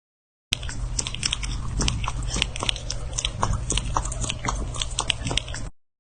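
A pet chewing and crunching, with a quick, irregular run of crisp crunches over a low steady hum. It starts and stops abruptly.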